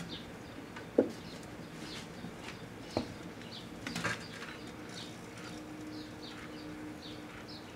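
A 5 1/4" floppy disk drive burning inside a running microwave oven: a stream of small crackles and several sharp pops over a low steady hum. The loudest pop comes about a second in, with others about three and four seconds in.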